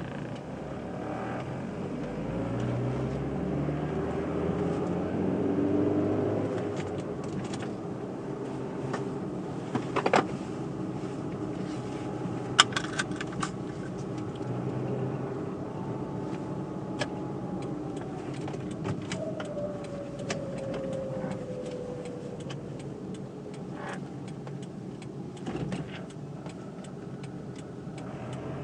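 Car engine running while driving, its note rising and falling with speed, with a slow falling glide in pitch past the middle. A few sharp clicks sound near the middle.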